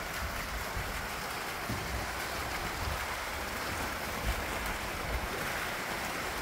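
Steady splashing of several small fountain jets spouting up and falling back into a garden pond, with wind buffeting the microphone as a low, uneven rumble.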